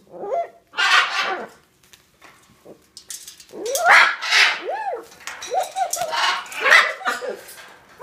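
Hyacinth macaw imitating a dog's bark: a string of short bark-like calls that rise and fall in pitch, mixed with harsh, raspy squawks, the loudest about four seconds in and again near seven seconds.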